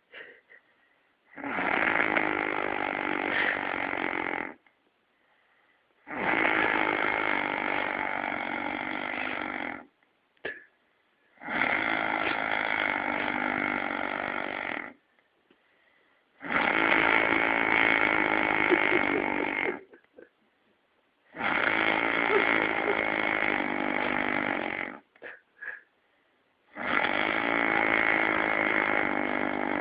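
A man snoring, in long snores of about three seconds each, repeating roughly every five seconds with quiet breaths between.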